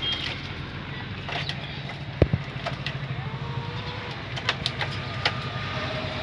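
Steady low rumble of a motor vehicle engine running, with a few sharp clicks, the loudest about two seconds in.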